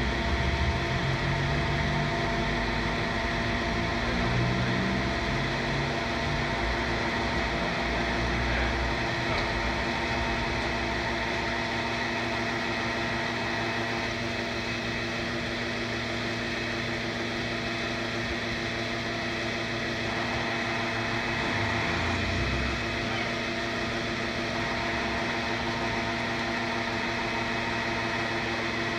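Diesel fuel dispenser pump running with a steady hum while it delivers fuel into a tank.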